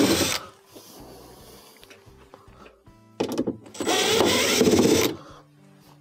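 Cordless impact driver backing out Phillips screws, running in two bursts: one ending about half a second in, another from about three to five seconds.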